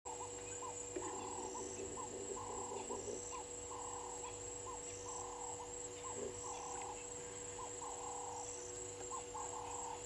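Outdoor bush chorus: a steady high-pitched insect drone, with a short call around mid pitch repeating about every second and a half and a fainter high chirp at a similar pace.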